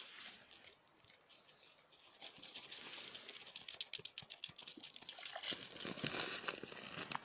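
Rapid, irregular clicking and crackling on the ice, thickening about two seconds in, from a fish and fishing gear being handled at an ice-fishing hole.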